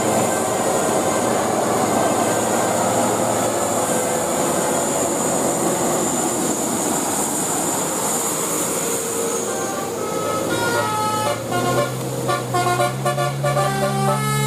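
A steady rush of vehicle noise, then about ten seconds in a bus's telolet horn starts playing, its air-horn notes stepping quickly up and down through a tune.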